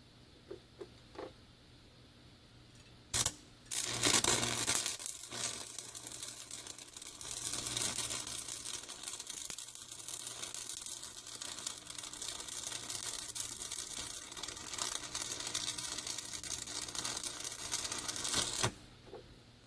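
Stick arc welding with a 7018 rod. A brief strike about three seconds in, then the arc crackles and sizzles steadily for about fifteen seconds and cuts off suddenly near the end.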